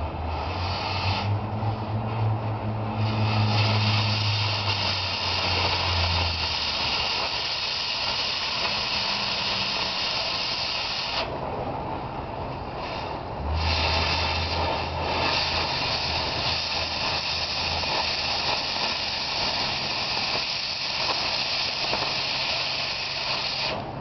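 Oxy-acetylene cutting torch hissing steadily as its jet cuts into a steel backhoe bucket tooth, throwing sparks. The hiss cuts out for about two seconds near the middle and then comes back, and a low hum comes and goes underneath.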